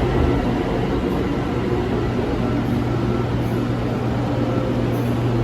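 Steady hum of a BTS Skytrain electric train, with a constant low drone under an even rushing noise.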